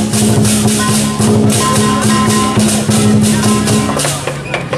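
Lion-dance percussion: a fast, even beat of clashing cymbals and drum over a held ringing tone, stopping about four seconds in.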